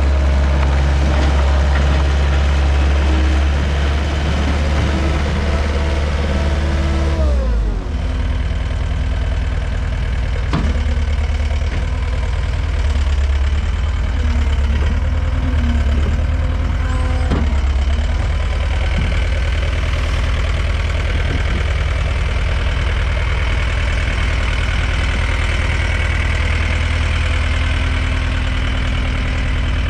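Diesel engine of a 2008 John Deere CT322 compact track loader running fast, then throttled down about a quarter of the way in and settling to a steady idle, with a couple of short knocks.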